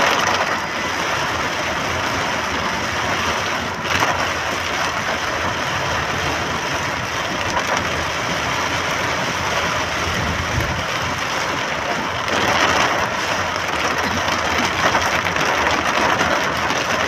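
Heavy rain falling on a moving car, heard from inside the cabin, mixed with the engine and the tyres running on the wet road. A single sharp knock about four seconds in.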